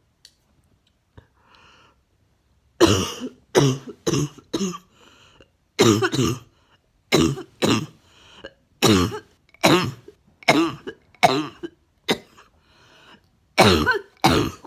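A woman coughing a chesty cough over and over. It starts about three seconds in after faint breaths, with about fifteen coughs in short runs of one to four.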